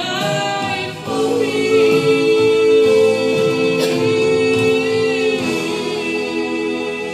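Vocal group singing a gospel song in harmony, holding one long chord from about a second in until about five and a half seconds, then moving on.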